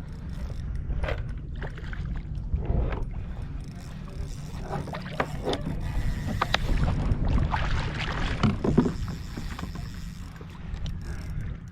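Water splashing around a kayak, with scattered clicks and knocks against the hull over a steady low wind rumble on the microphone.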